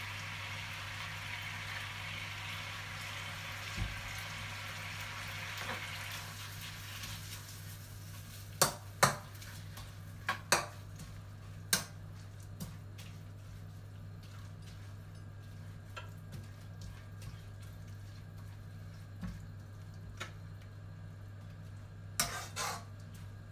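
Rice noodles sizzling in sauce in a hot non-stick wok. The sizzle fades after about six seconds. Then a spatula stirs and tosses the noodles, knocking sharply against the wok in a cluster of clacks a few seconds later and twice more near the end.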